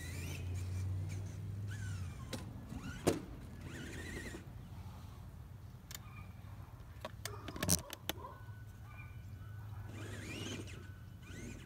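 Electric motor whine of a Traxxas Summit RC truck, rising and falling several times as it speeds up and slows while driving, over a steady low hum. Two sharp clicks, about three seconds in and near eight seconds.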